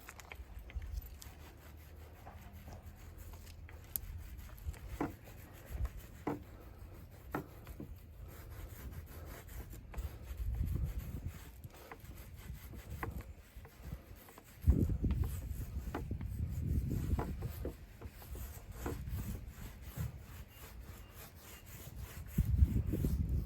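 Rubbing and handling noises on wood, with scattered light clicks and knocks and a few stretches of low thudding rumble.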